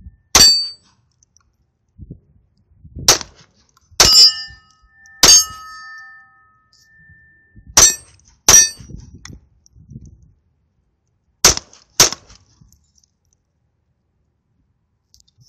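Eight .22 pistol shots, unevenly spaced, some in quick pairs. Several hits are followed by the ringing ding of a struck steel target.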